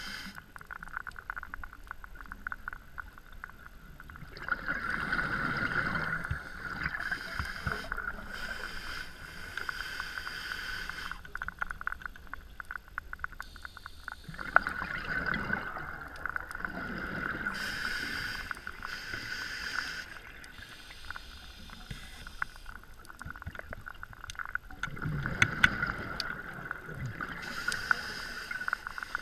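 Scuba diver breathing through a regulator underwater: three slow breath cycles about ten seconds apart, each a rush of exhaled bubbles and a hiss of inhaling, over a steady fine crackle.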